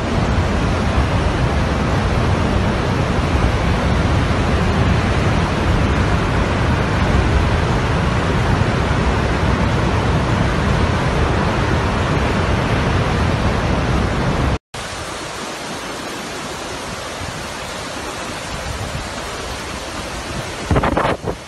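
Floodwater rushing in a torrent: a loud, steady roar with a deep rumble. About two-thirds of the way through it cuts out for an instant and a quieter, thinner rush of water goes on, with a short louder noise near the end.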